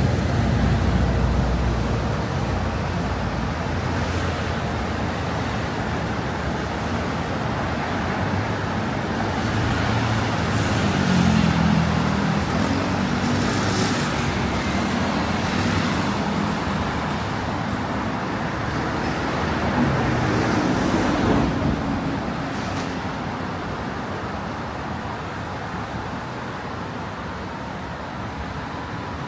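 City road traffic: a steady wash of vehicles with the engine hum of passing vehicles, louder about ten seconds in and again around twenty seconds in, then quieter for the last several seconds.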